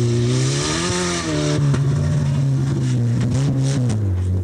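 Small hatchback rally car's engine revving hard as it drives through a snowy bend, the pitch rising about a second in and then holding. A hiss rides over the engine for the first second and a half, with a few sharp ticks near the end.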